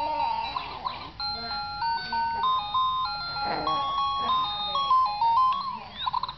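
A baby toy's electronic tune: a simple melody of clean beeping notes stepping up and down, which breaks off near the end.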